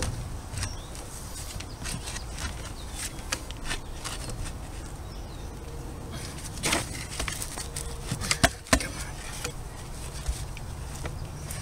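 Hands working PVC fittings onto a pool pump while the cement is wet: scattered clicks and knocks of hard plastic, the sharpest a pair about eight and a half seconds in, over a low steady rumble.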